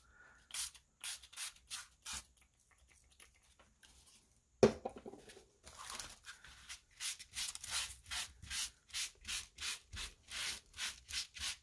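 A few short spritzes from a small pump mist spray bottle of gold shimmer spray, then a single knock about four and a half seconds in. After that, a crumpled paper towel is rubbed back and forth over the wet cardstock in quick strokes, about three a second.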